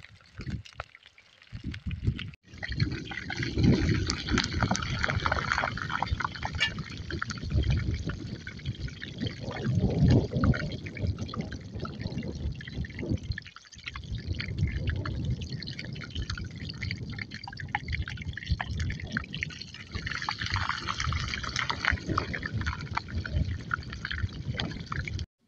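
Pork bagnet (boiled pork belly) deep-frying in a wok of hot oil: a dense, steady sizzle full of small pops. It starts about two seconds in and breaks off briefly once midway.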